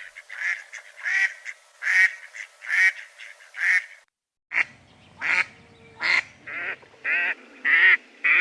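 Ducks quacking in a run of separate calls, a little more than one a second. A brief silent break comes about four seconds in, then another series of calls.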